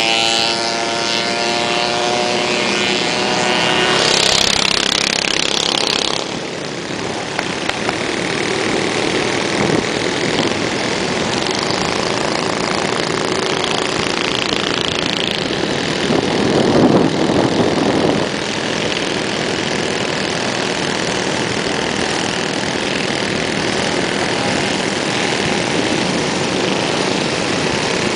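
Minibikes' small single-cylinder Tecumseh engines running as the group rides along. There is a steady engine drone for the first few seconds, then mostly a steady rushing noise, with a louder swell about two-thirds of the way through.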